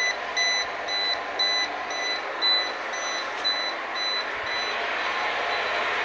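Overflow alarm buzzer on a steam boiler's water-level control panel beeping about twice a second, signalling that the water has reached the overflow level; the beeping stops about four seconds in, leaving a steady background noise.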